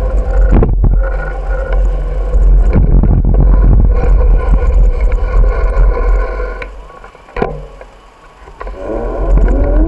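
Wind buffeting the microphone and the rattle of a bicycle ridden over pavement, a loud low rumble with scattered knocks. It drops away briefly about seven seconds in, then a motor vehicle's engine comes in near the end, rising in pitch as it accelerates.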